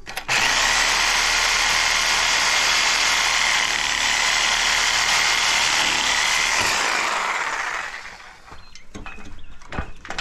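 Handheld power tool running steadily at full speed with a high whine for about seven seconds, then winding down, as it works a piece of scrap metal loose.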